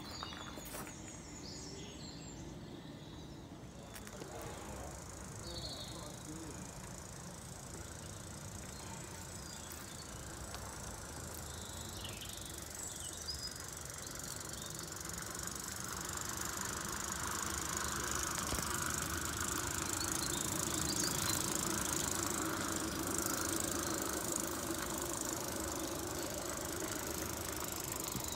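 A small live-steam garden-railway train running on the track: a steady hiss and rumble that grows louder from about halfway through as the train comes nearer. Birds chirp now and then.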